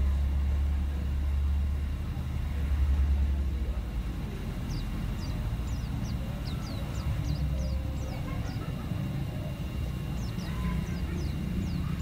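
A caged white-eye (pleci) gives rapid runs of thin, high, downward-sliding chirps, starting about five seconds in and again near the end. Under it runs a low rumble, strongest in the first few seconds.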